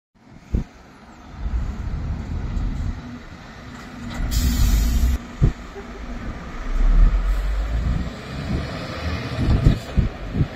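Articulated lorry driving past at close range: the diesel engine runs with a steady note, and the engine and tyre rumble is loudest about seven seconds in as it goes by. A few short low knocks come near the end.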